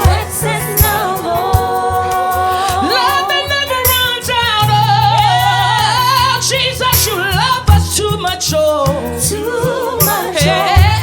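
Live gospel worship music: singers hold long, wavering notes without words over bass, keyboard and drums, with sharp drum and cymbal hits.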